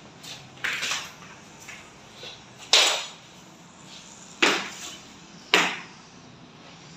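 WPC (wood-plastic composite) wall panels being handled, knocking and clattering against each other: a softer clatter about a second in, then three sharp knocks spaced a second or two apart.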